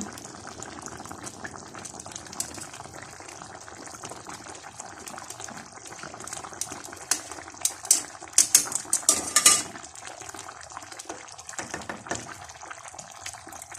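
Pot of creamy chicken stew simmering with a steady low bubbling. About seven seconds in, a metal utensil clinks and scrapes against the pot several times as the potatoes are tested and found still hard.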